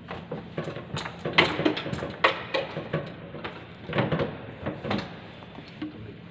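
A run of knocks and clatters from hands working on a Toyota forklift's seat and engine cover, with the loudest knocks about a second and a half, two, four and five seconds in.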